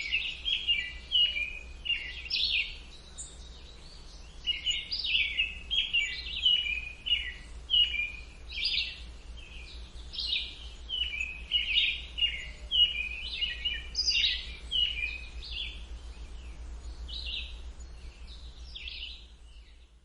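Several small songbirds singing and chirping in quick, overlapping phrases of summer birdsong, over a low steady background rumble. The song thins out and dies away at the end.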